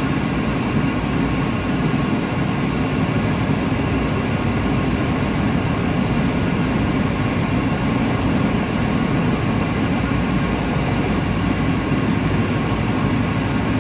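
Semi truck's diesel engine and cab noise, heard from inside the cab as the truck rolls slowly at low speed: a steady, deep drone that does not change.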